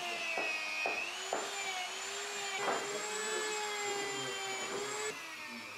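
An electric motor of a workshop machine running with a steady, slightly wavering whine, with a few sharp knocks in the first three seconds. It gets quieter about five seconds in.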